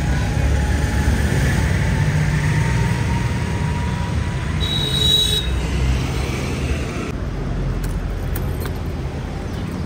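A road vehicle's engine running close by, a steady low rumble, with a short high-pitched beep about five seconds in.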